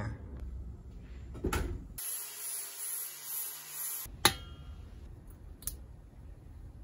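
Angle grinder grinding on a steel propane tank, heard as a hiss of about two seconds that starts and stops abruptly, with a few sharp clicks and handling knocks around it.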